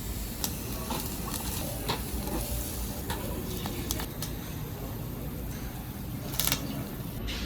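Meat sizzling on a barbecue grill, with scattered clinks of utensils and dishes and a louder clatter near the end.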